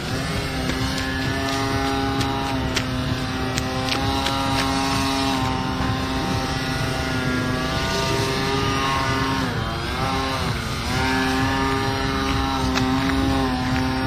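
Electric RC plane's 11x6 propeller on a Turnigy 900kv brushless outrunner motor, giving a steady whine as the Multiplex Acromaster hovers nose-up. Around ten seconds in the pitch drops and climbs back as the motor speed falls and picks up again.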